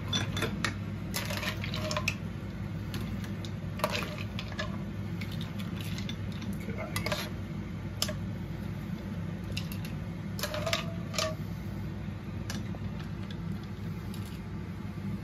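A metal spoon clinking and scraping against a non-stick pan as cooked mussels and clams are scooped out, with shells clattering, in irregular sharp clinks over a steady low hum.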